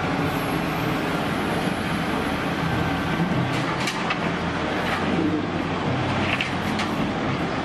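Komatsu WA470 wheel loader's diesel engine running steadily under load while it works its raised bucket, with a few short clanks around the middle.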